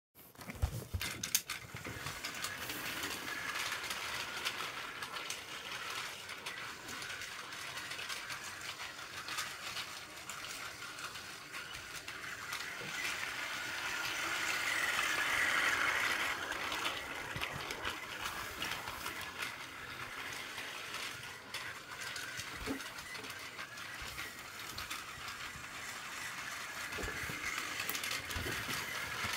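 Plarail battery-powered toy train, several trains coupled together, running on blue plastic track: a steady whir of the small motor and gears with the clatter of wheels on the track, loudest about halfway through as the train passes close by.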